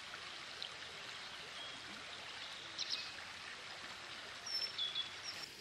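Shallow stream running over stones, a steady rushing hiss, with a few short high bird chirps about three seconds in and again near the end.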